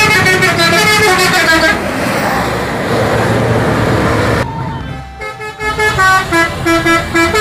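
Indonesian tour buses' multi-tone musical 'telolet' horns playing a quick tune of stepped notes in the first couple of seconds. Then comes a stretch of rushing noise, and from about five seconds in the horns sound again as a run of short, rapid toots.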